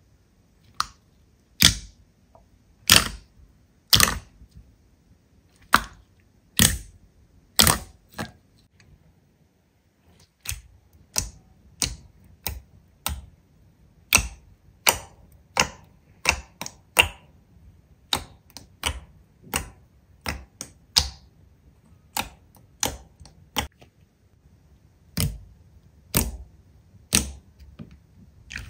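Slime being handled, giving a series of sharp, crisp pops. They come about once a second at first, then after a short pause around ten seconds in, about two a second.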